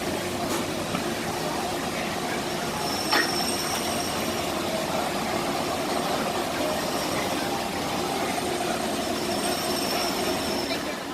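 Disneyland Railroad train running along its track: steady running noise with a faint high wheel squeal twice. There is a single sharp knock about three seconds in.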